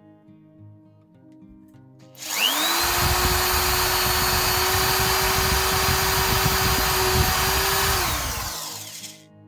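Electric drill spinning up with a rising whine, running steadily while boring round openings in PVC sheet, then winding down near the end; quiet guitar music plays before it starts.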